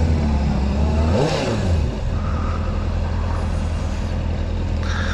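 Honda CBR sport-bike engine running at low speed, with a brief rev about a second in that rises and falls, then a steady low run.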